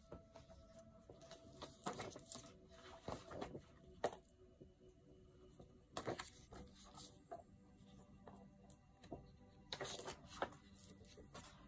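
Paper rustling and crackling as a large printed wall calendar and photo cards are handled and their pages turned, in short scattered bursts.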